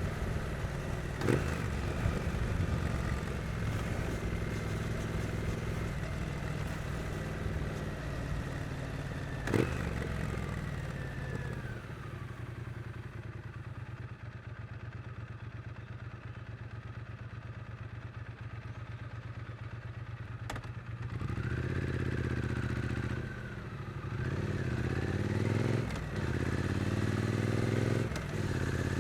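Triumph Street Twin's 900 cc parallel-twin engine running in city riding, with two sharp clicks in the first ten seconds. About halfway it drops to a quieter low-rev stretch, then it pulls away with revs rising and falling across several gear changes near the end.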